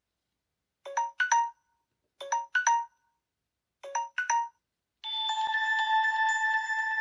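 Samsung Galaxy S7 edge built-in tones: a short three-note chime played three times, about a second and a half apart, then about five seconds in a different tone starts, with steady held notes.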